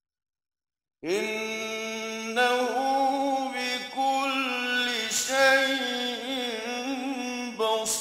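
About a second of silence, then a man's voice in melodic Qur'anic recitation (tajwid): long held notes with wavering ornaments, broken by a few short pauses.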